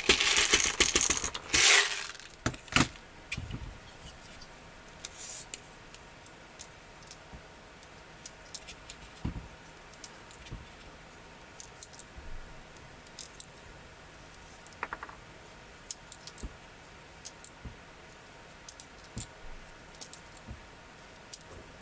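Bench handling of a small airsoft pistol and its test gear: a loud hissing rush in the first two seconds and a couple of sharp cracks, then scattered light clicks and taps.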